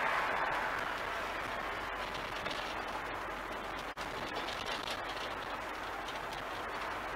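Steady rushing noise of a ride on a London bus: road and traffic noise mixed with wind noise, with a split-second drop-out about four seconds in.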